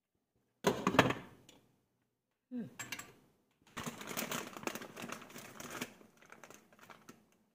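Clear plastic bag of dried noodle nests crinkling and crackling as the nests are pulled out by hand. It comes as a sharp burst about a second in, then as dense crackling through the second half.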